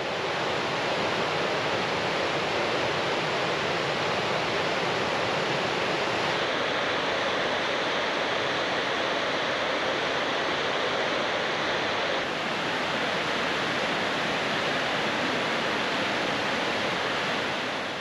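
Whitewater of the Maligne River rushing and cascading through the canyon: a steady, dense hiss of churning water, shifting slightly in tone about six and twelve seconds in.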